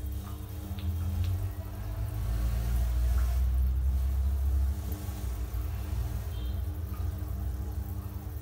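Water trickling in a goldfish tank over a steady mechanical hum, with a low rumble that swells in the middle.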